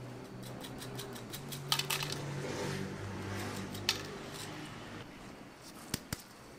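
Small dried red chili peppers shaken from a little glass jar, ticking and rattling onto a stainless steel tray: a quick run of light clicks, then a few single ticks.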